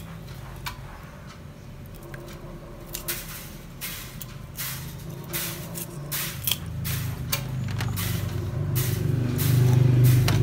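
A knife scraping scales off a whole fish in quick, uneven strokes, about two a second. A low droning hum rises in the second half and is loudest near the end.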